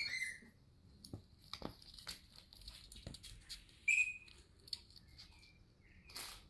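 A Shiba Inu puppy playing with a plush toy: scattered light clicks and rustling as it paws and chews, with brief high squeaks at the very start and about four seconds in.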